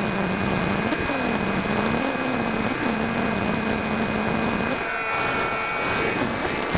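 Electric motor and propeller of a Firebird Delta Ray RC plane, heard through its onboard keychain camera's microphone with wind noise. The motor's pitch wavers up and down with the throttle, drops away about five seconds in as the plane banks, and comes back near the end, over a steady thin high whine.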